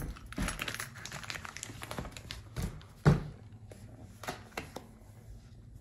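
Plastic-wrapped acoustic foam panels being handled: scattered crinkles and taps from the plastic wrap, with one loud thump about three seconds in.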